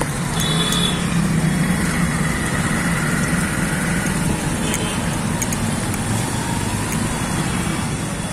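Busy street traffic: motorcycle engines running steadily under a constant road noise, with two short high-pitched beeps, one about half a second in and one around five seconds in.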